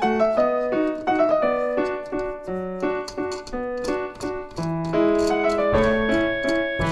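Background piano music: a quick melody of separate notes over a bass line, which grows fuller about five seconds in.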